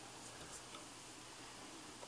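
Mostly quiet room with a couple of faint light clicks about half a second in: hard parts knocking softly as a petrol engine pack is set into a large-scale RC truck's chassis.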